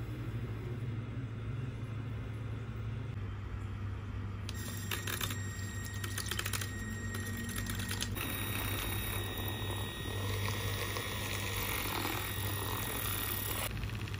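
Handheld milk frother whipping cream in a bowl: a small motor's steady whine, with a clicking rattle, starting a few seconds in.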